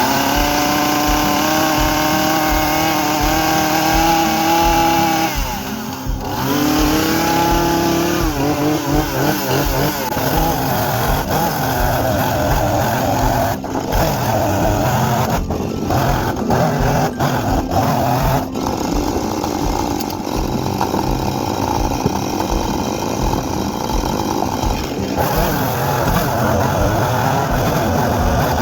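Chainsaw running at high revs, dropping briefly about six seconds in and revving back up, then running rougher and unevenly as if cutting under load, typical of cutting rotten wood out of a log end.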